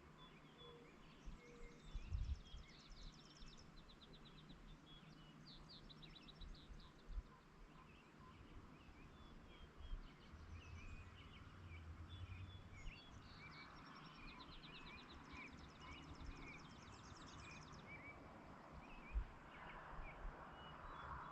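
Songbirds singing faintly outdoors: fast trilled phrases repeated several times, with many short chirps scattered between them over a low background hiss. There are a couple of low thumps, one about two seconds in and one near the end.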